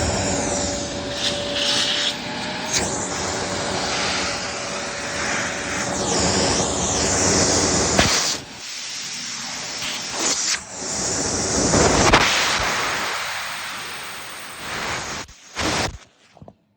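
Vacuum cleaner running, its rushing noise rising and falling as it is worked, with a steady hum in the first few seconds and a few sharp knocks; it cuts out about a second before the end.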